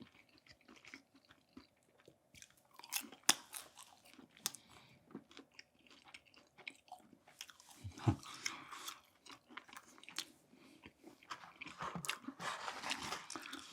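Close-up chewing and biting of a fried lumpia (Filipino spring roll): scattered crunches and clicks, busiest about eight seconds in and again near the end. The roll is tough to chew and not very crisp.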